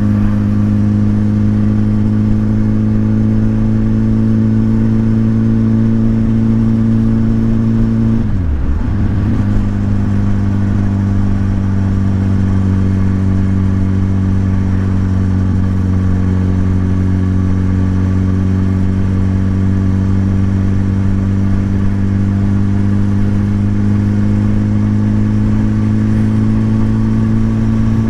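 Motorcycle engine running at steady revs while riding. About eight seconds in, the revs dip sharply and come straight back up, then hold a steady note again.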